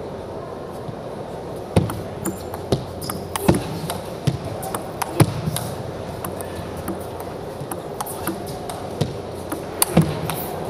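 Table tennis rally: the ball clicking sharply off the rackets and the table in a quick, irregular run of hits that starts about two seconds in and lasts about eight seconds.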